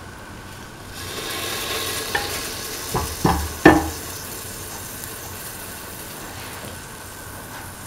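Cooking oil sizzling with a steady hiss as it heats in a stainless steel pan, coming up about a second in. Three sharp metal knocks from the pan about three to four seconds in.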